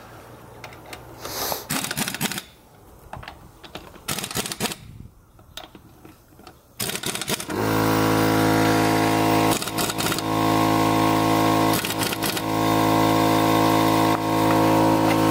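Pneumatic impact wrench working a car wheel's lug nuts: clicks and a couple of short bursts. About halfway a loud, steady machine drone starts abruptly and runs on, dipping briefly a few times.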